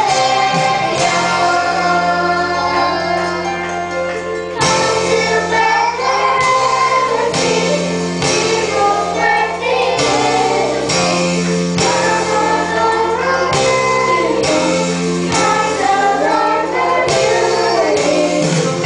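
Children's choir singing a Christmas song into handheld microphones, with a woman's voice leading, over instrumental accompaniment with a steady bass line.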